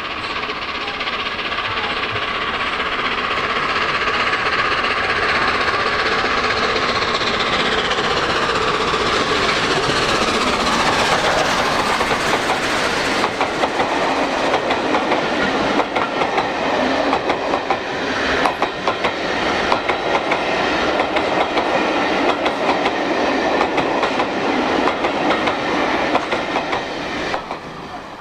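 LNER A1 class three-cylinder 4-6-2 steam locomotive passing under hard load as it climbs a gradient, its sound falling in pitch as it goes by about ten seconds in. Its train of Pullman coaches then follows, clattering rhythmically over the rail joints until the sound cuts off near the end.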